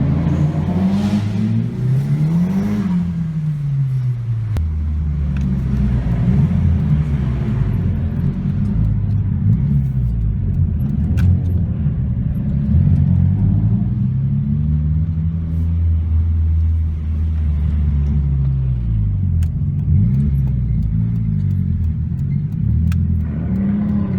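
A car engine running while being driven, its pitch climbing and dropping repeatedly as it accelerates and changes gear.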